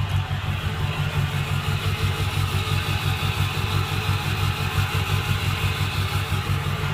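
Ford F-350 pickup engine idling steadily with an even, pulsing low rumble.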